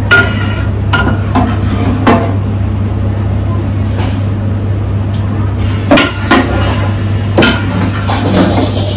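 Metal ladle knocking and scraping against stainless steel pans as sauce is ladled from a tilting cooking pan into a hotel pan, with sharp clanks every second or two. A steady low hum runs underneath.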